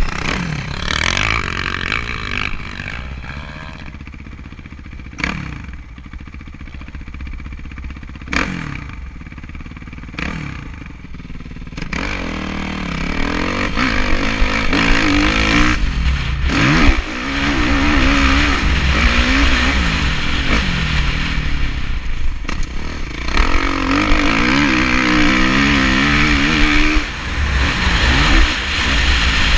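Kawasaki KX450F single-cylinder four-stroke motocross engine heard from a helmet camera while riding, rpm rising and falling with the throttle. Softer for the first dozen seconds with a few sharp knocks, then louder and harder on the throttle from about halfway.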